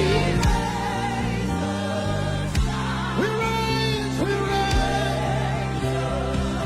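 Live gospel worship music: singing with a choir over sustained chords and bass, with a few sharp percussive hits.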